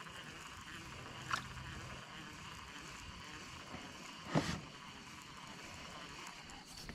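Quiet outdoor ambience on a small pond: a faint steady hiss with two brief knocks, the louder one about four and a half seconds in.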